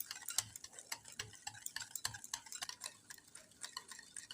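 Hand whisk beating oil, yogurt and sugar in a bowl: quick, irregular clicks of the wires against the bowl, about four a second.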